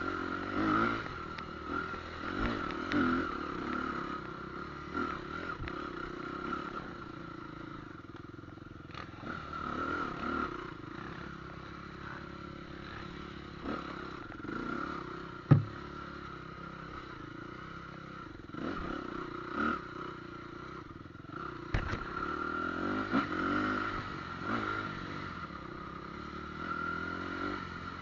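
An engine running steadily with a wavering pitch, with scattered rattles and knocks and one sharp knock about fifteen seconds in.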